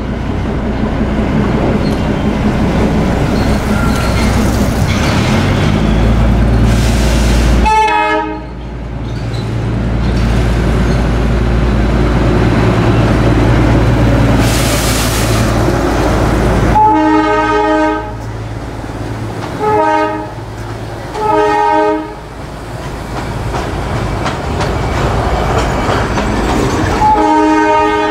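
Darjeeling Himalayan Railway narrow-gauge diesel locomotive running past with a steady low engine drone, sounding its horn five times: a short blast about eight seconds in, a longer blast in the middle, two short toots soon after, and another blast near the end.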